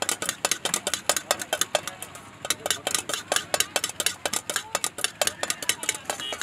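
A metal utensil clinking and scraping quickly inside a stainless-steel vessel, several sharp strikes a second.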